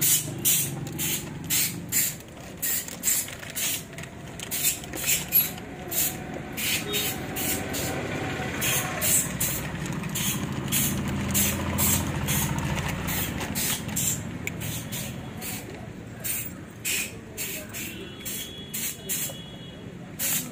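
Repeated short, scratchy swishing strokes, about two a second, with a low rumble that swells and fades about ten seconds in.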